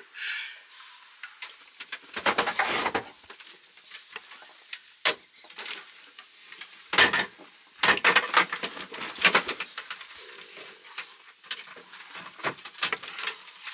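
Plastic incubator parts being handled and fitted together: irregular clicks, knocks and light rattles, busiest about two seconds in and again past the middle.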